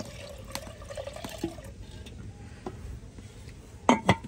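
Water poured from a clay pot into a clay handi, a steady pour that tails off about halfway through. Two short loud sounds near the end.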